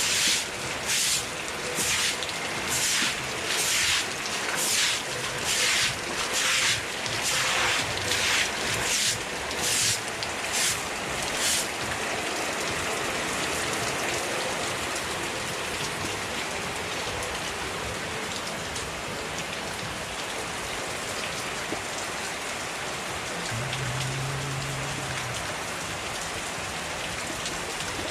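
Broom sweeping water across a flooded yard in regular swishing strokes, about one a second, which stop about 11 seconds in. Heavy rain falls steadily on the ground throughout.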